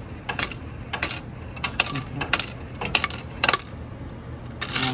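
Coins clinking in a snack vending machine's coin return cup as $4 in change comes out: a string of irregular sharp clinks.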